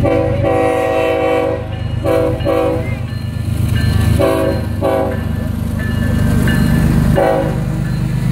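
BNSF diesel locomotive's multi-chime air horn sounding a series of blasts: a long blast near the start, two pairs of short blasts around two and four and a half seconds in, and a short one about seven seconds in. Under the horn, the diesel engines and wheels of the lead locomotives rumble, growing louder as they pass close by.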